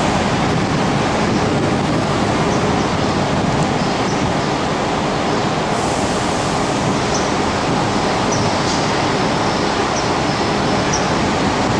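City bus engine running as the bus pulls slowly toward the camera, under a steady rush of traffic noise, with a few faint short high chirps in the second half.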